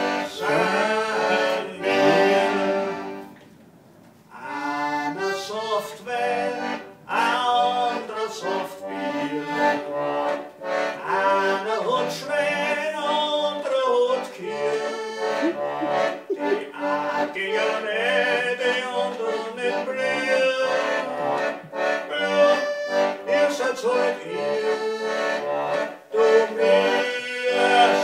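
Accordion played solo: an instrumental passage of a Wienerlied (Viennese song), the melody over held chords, with a brief pause about three and a half seconds in before it resumes.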